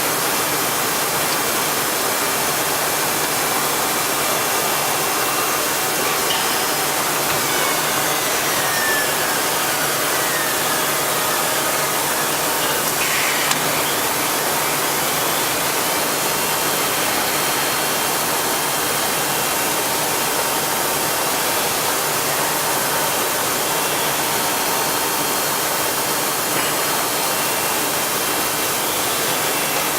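Heian ER 531P CNC router running: a steady rush of machine noise with thin, steady whining tones over it, and a faint whine gliding down in pitch about eight seconds in.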